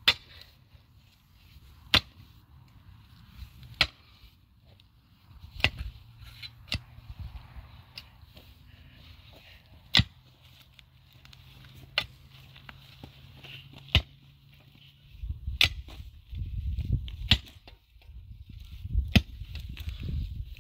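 Sharp knocks struck about once every two seconds, from hand work on a stone-and-mud wall. Low rumbling noise grows louder from about fifteen seconds in.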